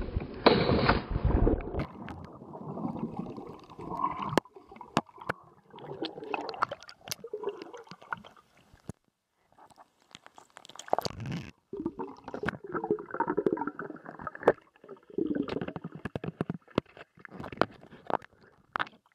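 Pool water sloshing and gurgling around a camera held at and under the surface, muffled, coming in irregular surges with sharp clicks and knocks and a couple of brief drop-outs.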